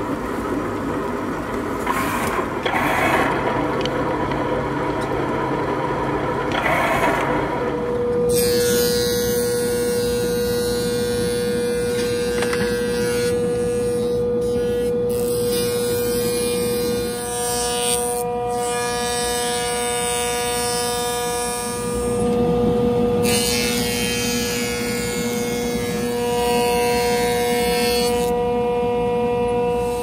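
Woodworking thickness planer running, boards fed through its cutterhead in passes. A steady whine holds from about eight seconds in, and a hissing cutting noise drops out briefly between passes.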